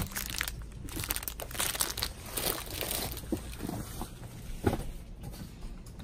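Plastic packaging crinkling and rustling as it is handled, in irregular crackles, with a sharper click at the start and another a little before the end.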